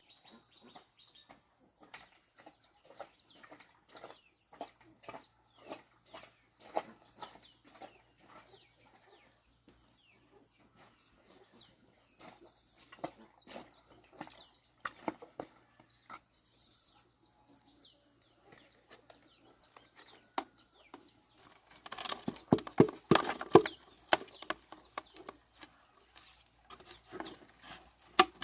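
Chickens with high, falling peeps repeated throughout, among many light clicks and taps. The taps grow louder and busier about three-quarters of the way through.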